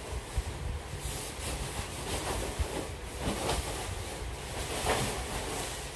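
Plastic and foam TV packaging rustling and rubbing as it is worked off the top of the set, with several louder swishes.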